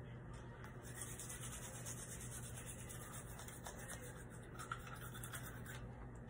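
Toothbrush bristles scrubbing on teeth, a faint rubbing sound, over a steady low hum.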